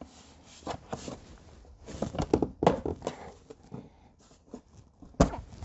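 The plastic left-side engine cover of a CFMOTO CForce 500 ATV being worked loose and pulled off: a run of plastic clicks, knocks and rubbing, with one sharp snap about five seconds in.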